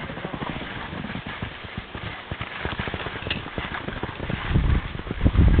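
Skis scraping and chattering over crusty, tracked snow on a downhill run, in a rough run of irregular knocks and scrapes. Low thumps and rumbles grow louder near the end.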